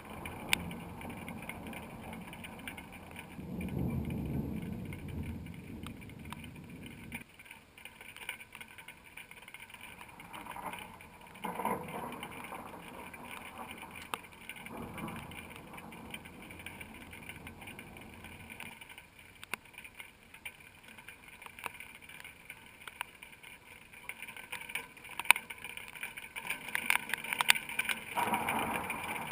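Thunderstorm at night: a low rumble of thunder swells and fades between about three and seven seconds in, over a steady background hiss with scattered sharp ticks.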